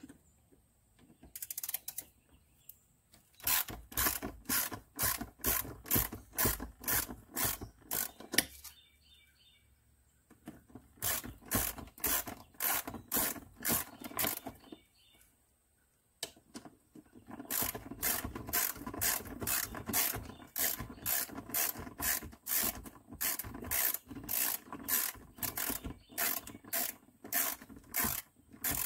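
Hand socket ratchet clicking at about two clicks a second as it loosens the grab bar mounting bolts, in three runs with short pauses between.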